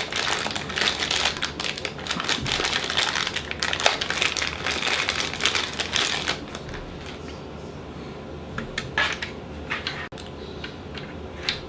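SATA cable and its packaging being handled: rapid small clicks and rustling for about six seconds, then quieter, with a few isolated clicks near the end.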